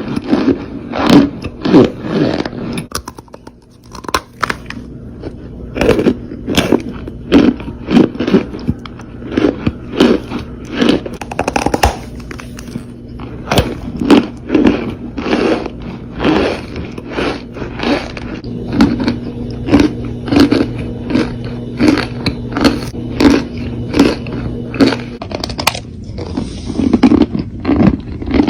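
Close-miked ASMR crunching of a brittle material: a steady run of sharp crunches, about one to two a second. A faint steady hum lies underneath for most of the stretch.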